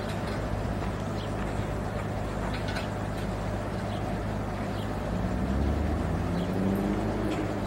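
A heavy diesel engine running with a steady low hum, revving up from about five seconds in, its pitch rising for a couple of seconds.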